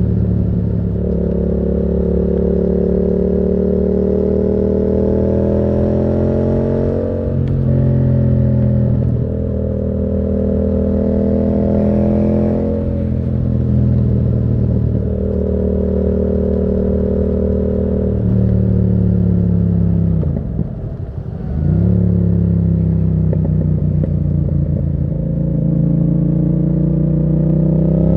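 Yamaha MT-07's parallel-twin engine running through a Termignoni exhaust while the bike is ridden. The engine pitch climbs and drops back several times as it pulls through the gears. About two-thirds of the way through it briefly falls away as the throttle is closed, then picks up again.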